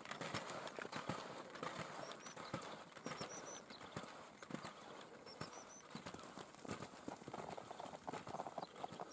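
Cross-country skis and poles on groomed, packed snow: a faint, irregular rhythm of crunching strides and pole plants. A short high chirp in runs of three recurs every second or two.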